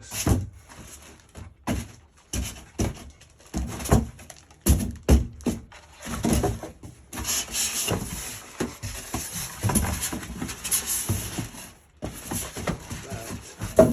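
Irregular knocks, clunks and rustling as the vacuum cleaner's parts and packaging are handled and moved about during unboxing, with a longer stretch of rustling in the middle.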